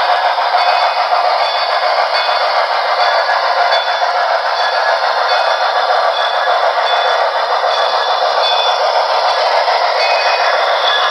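Model train running on the layout's track: a steady clatter of metal wheels on rail, with faint short high tones over it.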